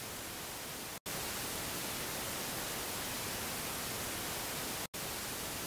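A steady, even hiss like white noise, with no tone or rhythm. It cuts out for an instant about a second in and again near the end, and is a little louder between the two cuts.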